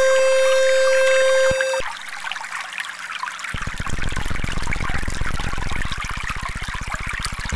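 Trickling, pouring water runs under a steady synthesized mid-pitched tone that stops about two seconds in. A low, rapid buzzing pulse joins the water about three and a half seconds in.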